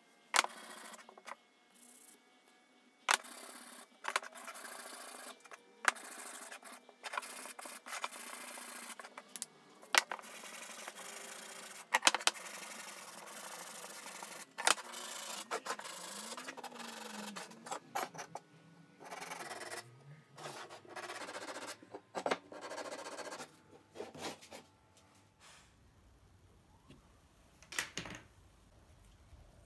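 Hand sanding the edge of an oak board with a sanding sponge: repeated scratchy rubbing strokes, each lasting a second or two, broken by occasional sharp knocks. The sanding stops about 25 seconds in, and there is one more knock near the end.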